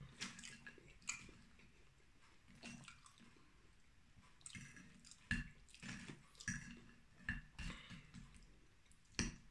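A person chewing a mouthful of grilled pork neck and fried potatoes, with irregular wet, squishing mouth sounds and one sharper click near the end.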